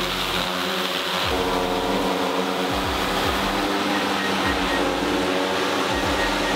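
Large DJI quadcopter drone hovering, its propellers giving a steady, loud multi-tone hum.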